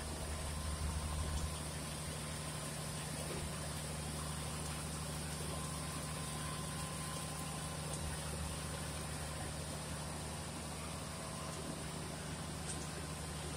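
Steady low hum and drone of a small sugarcane crushing mill's machinery running, a little louder for the first second or so.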